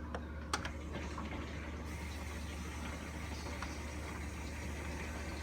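Whirlpool dishwasher filling with water: a steady hiss of water running in over a steady low hum, with a couple of faint ticks near the start.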